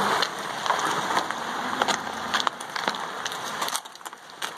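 A heavy plastic trash can loaded with leaves, brush and crushed asphalt being pushed across rough asphalt, its base scraping and grinding with a gritty crackle. It briefly goes quieter near the end.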